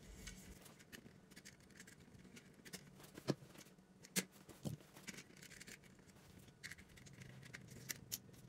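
Faint clicks, ticks and scrapes of electrical wire and a plastic thermostat base being handled, with a few sharper ticks between about three and five seconds in. Near the end a screwdriver is set into a terminal screw to tighten down the wire.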